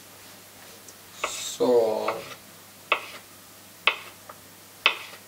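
Kitchen knife slicing a banana into chunks on a cutting board: the blade knocks sharply against the board about once a second, five times.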